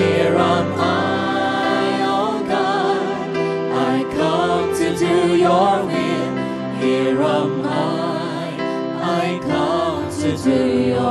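Christian worship song: voices singing with vibrato over sustained instrumental chords.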